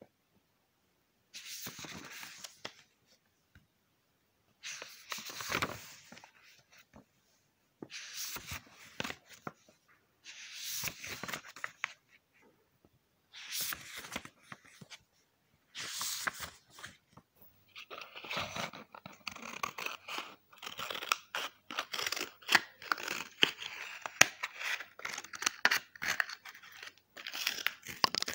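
Sheets of paper being torn and handled: six separate rips or rustles, each a second or two long with silent gaps between, then about ten seconds of dense, continuous crackling paper full of sharp clicks.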